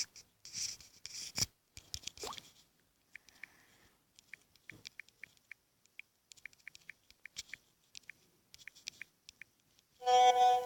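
Light, irregular clicks of typing on a smartphone touchscreen keyboard, a few taps a second, after some soft handling of the phone. A brief steady tone starts near the end.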